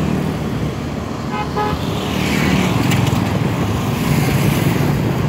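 Road traffic running steadily, with a vehicle horn tooting twice, briefly, about a second and a half in.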